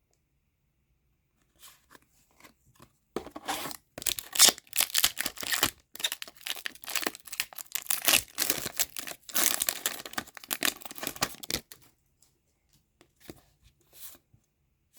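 A hockey card pack's wrapper being torn open and crinkled, a dense run of crackling and tearing lasting about eight seconds, followed by a few faint clicks.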